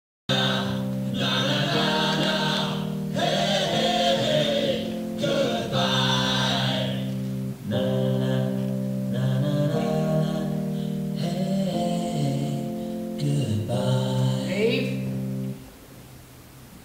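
Music with a choir singing over held chords. It starts abruptly out of silence and cuts off about a second before the end.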